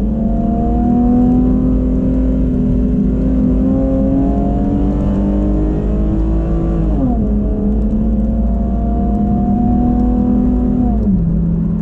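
Chevrolet Camaro's 3.6-litre V6 with an aftermarket Borla exhaust accelerating. The engine note climbs steadily, drops at an automatic upshift about seven seconds in, climbs again, and drops once more near the end.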